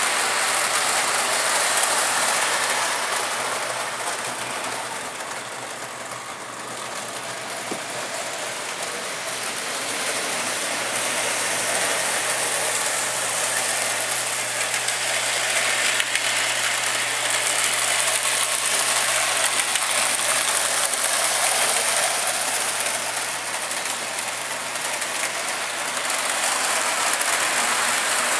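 Lionel 2-4-2 toy steam locomotive running on three-rail track, pulling freight cars: the steady mechanical running of its electric motor and gears. It dips in loudness about six seconds in and grows again.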